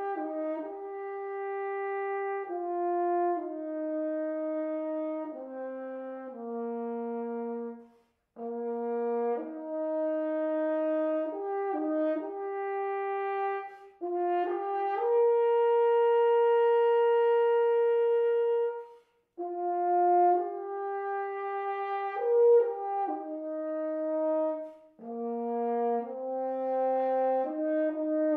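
Solo French horn playing an unaccompanied melody in separate phrases of held notes, stopping briefly twice, with one long sustained note in the middle.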